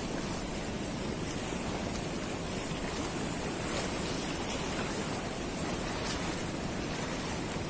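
Fast, turbulent river current rushing below a dam's open gates, a steady, even rush of water.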